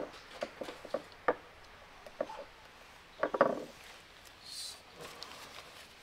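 Scattered light clicks and taps of small metal and plastic parts and tools being handled on a workbench, with a denser cluster of knocks a little past halfway and a short soft hiss soon after.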